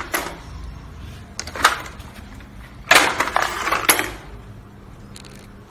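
Hard plastic clattering from a toy ball-scooping bulldozer: a sharp clack at the start, another about a second and a half in, and a burst of knocks and rattles around three to four seconds in.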